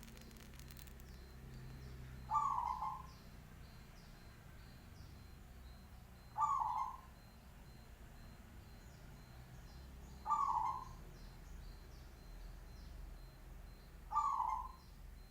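Zebra dove (perkutut) cooing: four short phrases, evenly spaced about four seconds apart. Faint high chirps of other small birds can be heard between them.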